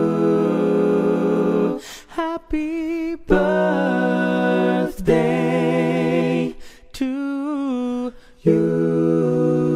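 Unaccompanied singing: voices holding long notes, several with a wavering vibrato, in phrases broken by short pauses.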